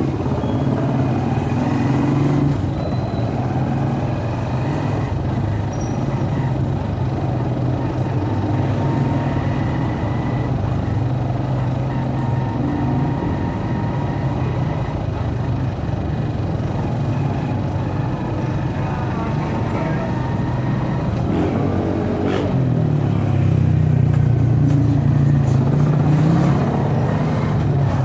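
Motorcycle engine running at low riding speed, a steady drone that rises in pitch and grows louder about three-quarters of the way through as it speeds up.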